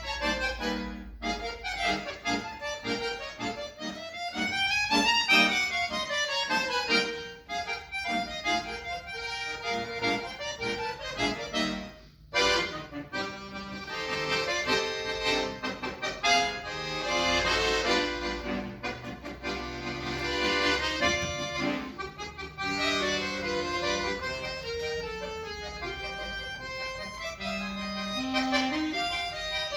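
Solo accordion playing: fast runs of notes that climb and fall in pitch, a brief break about twelve seconds in, then held chords under a moving melody.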